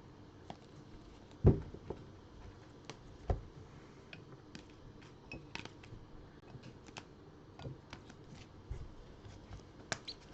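Trading cards in rigid plastic top-loaders being handled and gathered on a table: scattered light clicks and taps, with two louder knocks about one and a half and three seconds in.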